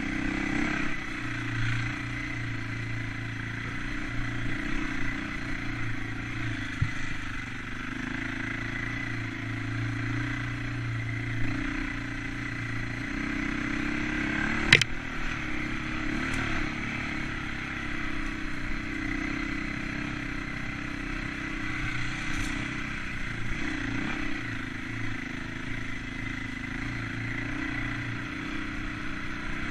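Enduro dirt bike engine running at fairly low, steady revs as it is ridden along a forest trail. A single sharp knock about halfway through.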